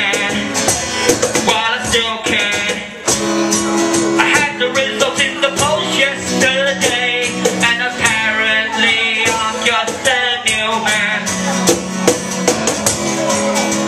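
Live acoustic guitar strummed and picked with a sung vocal line over it, its melody rising and falling.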